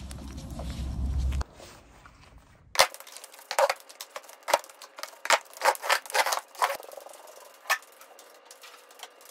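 Metal-frame stacking chairs knocking and clanking against each other as they are lifted and stacked: a quick, irregular run of sharp clacks over several seconds. A low outdoor rumble runs for the first second or so, then cuts off.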